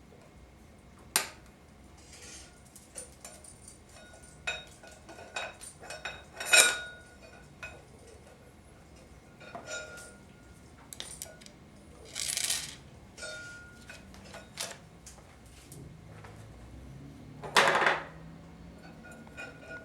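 Steel and friction clutch plates of a 4L60E transmission's forward clutch pack clinking and scraping as they are set one by one into the input drum. Irregular sharp metallic clicks, some with a brief ring, and two longer scraping slides, one about twelve seconds in and a louder one near the end.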